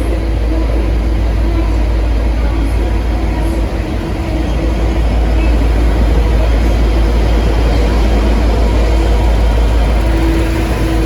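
V/Line N class diesel-electric locomotive running under power as the train departs: a steady, loud, deep rumble with a faint hum above it.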